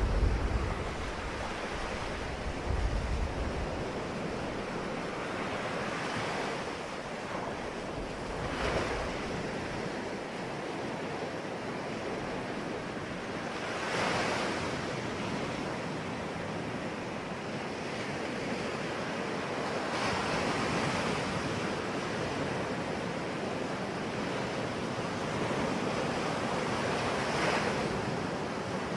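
Ocean waves breaking on a shore: a steady wash of surf with a wave surging up every several seconds, about five times. Low wind rumble on the microphone in the first few seconds.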